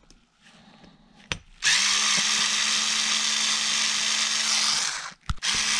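Small cordless electric screwdriver running steadily for about three seconds as it backs out the last top-cover screw of a Solex 34 PICT-3 carburetor. It stops, there is a click, then it gives a short second burst near the end.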